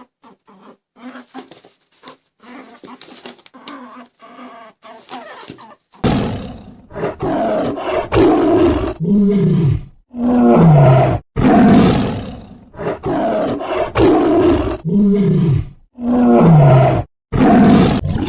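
A big cat roaring again and again, each roar about a second long with a falling pitch. The roars start about six seconds in and follow a stretch of quieter, shorter, higher calls.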